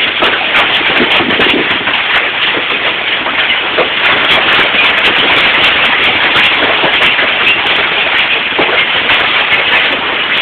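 Hailstones pelting down with heavy rain: a steady loud rush of rain with a dense, irregular clatter of small hard impacts.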